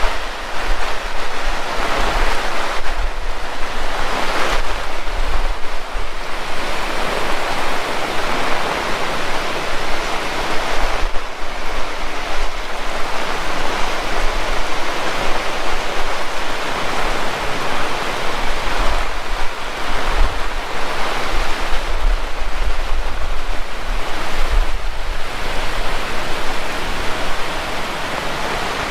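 Heavy tropical rain pouring steadily, a loud, dense hiss of downpour with uneven low rumbles underneath.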